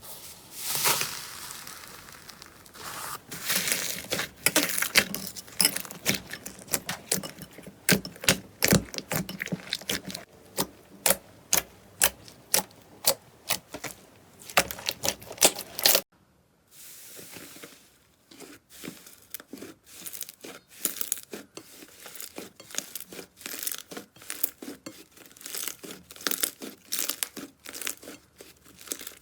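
Slime being pressed, poked and stretched by hand, giving dense runs of sharp crackles and pops. The sound stops briefly about halfway through, then the crackling goes on a little softer.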